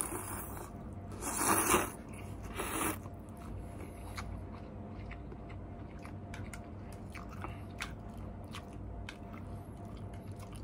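A mouthful of noodles slurped in twice in quick succession, the first rush about a second in and the louder of the two. Then chewing, with many small wet mouth clicks.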